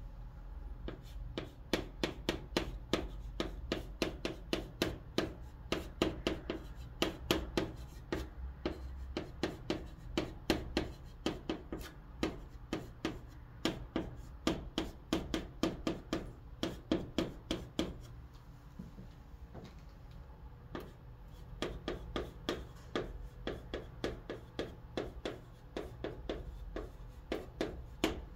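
Chalk writing on a chalkboard: a fast run of short taps and scrapes as each stroke of the Korean letters is drawn, with a lull about two-thirds of the way through before the strokes resume.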